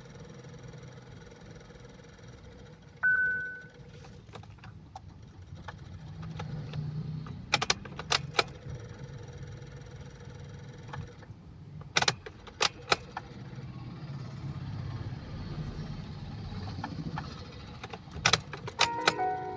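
Hyundai Creta that won't start: one short electronic warning beep, then three quick clusters of sharp clicks several seconds apart over a low steady hum, a sign of the no-start fault with its malfunction alarm. A few musical notes begin near the end.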